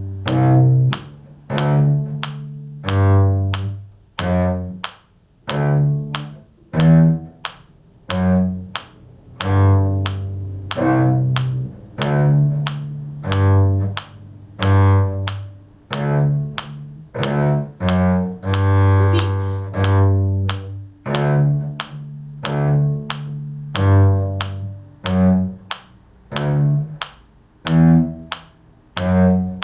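A cello playing a slow bass line, one detached note at a time at a steady quarter-note pulse of about one note a second; each note starts strongly and fades before the next.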